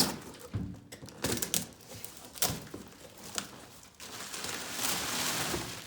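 Drum packaging being handled and opened: a string of sharp clicks and knocks, then a steady scraping rustle lasting a little under two seconds, starting about four seconds in.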